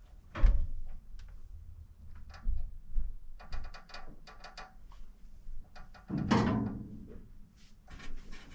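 Irregular knocks, clicks and thuds of things being handled, with a heavy thump about half a second in, a quick run of clicks around the middle, and a louder clatter about six seconds in.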